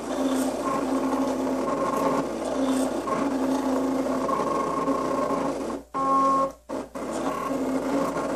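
Cricut Personal Cutter (CRV001) cutting letters: its motors whir as the rollers and blade carriage move in short strokes, the pitch shifting from one move to the next. The machine stops briefly twice, about six and seven seconds in.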